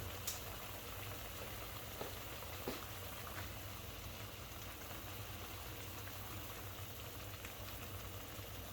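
Noodles cooking in liquid at a rolling boil, bubbling steadily, with a few light clicks in the first three seconds.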